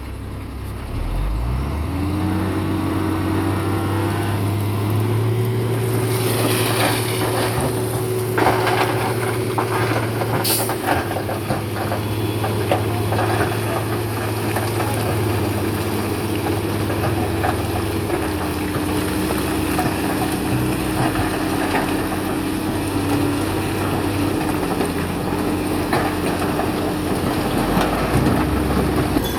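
Heavy diesel engine of a bulldozer revving up about two seconds in and then running steadily under load, with metallic clanking and rattling and one sharp squeal about ten seconds in.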